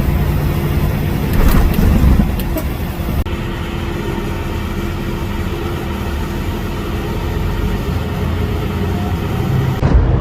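Steady engine and road drone inside a moving semi-truck's cab, with a few brief clicks about one and a half to two and a half seconds in.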